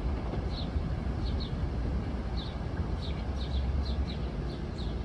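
A steady low rumble, with a small bird chirping repeatedly over it in short high chirps, often in pairs.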